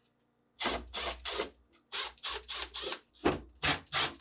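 Screws being turned out with a Phillips screwdriver: a run of short scraping strokes, a few a second, starting about half a second in.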